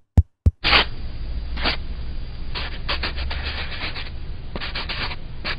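Sound effect of a pen scratching out a signature, in a series of quick scraping strokes over a low steady hum. Two sharp clicks come in the first half second, before the writing starts.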